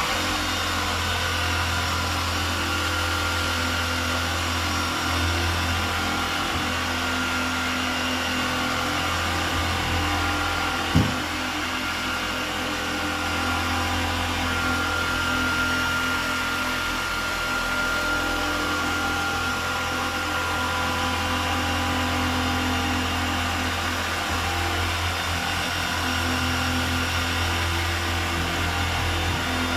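Electric orbital car polisher running steadily on paintwork during a medium-cut polishing stage: an even motor whirr with a low hum and a thin whine. One sharp knock about eleven seconds in.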